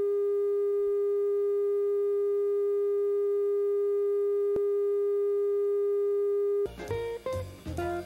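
Steady, unwavering electronic test tone at the head of a videotape, one mid pitch with faint overtones and a short click about four and a half seconds in. It cuts off near the end and plucked guitar music begins.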